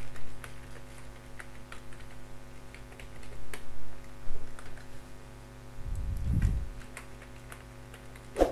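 Computer keyboard keys tapped in quick irregular runs as a password is typed, over a steady low hum. A low muffled thump comes about six seconds in.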